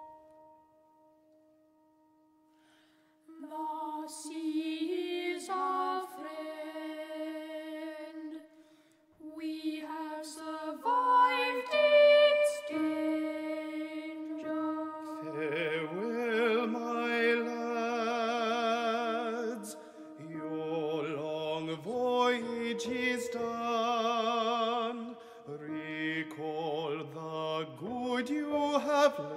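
A trio of boys' voices singing an operatic passage with vibrato, accompanied by piano. The voices enter about three seconds in, after a faint held note, and sing in overlapping phrases.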